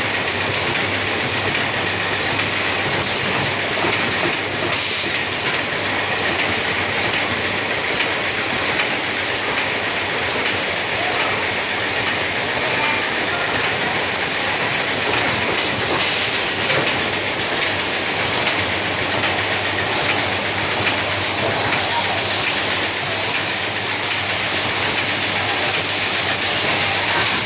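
Automatic cartoning and film-wrapping packaging line running: a steady, dense mechanical clatter of many small clicks and knocks over a low hum.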